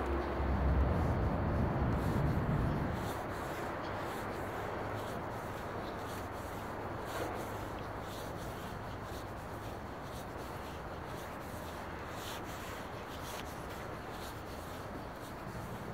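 Rubbing and scraping handling noise from a phone carried while walking, over a steady background hum, with faint irregular ticks. A low rumble fills the first three seconds, then fades.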